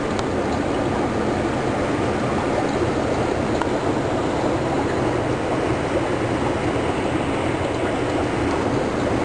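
Steady low rushing noise of aquarium water circulation, unchanging throughout.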